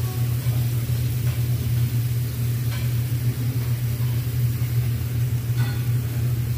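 A steady low hum, over faint sizzling of pork belly and octopus on a Korean barbecue grill plate. Metal tongs click lightly twice.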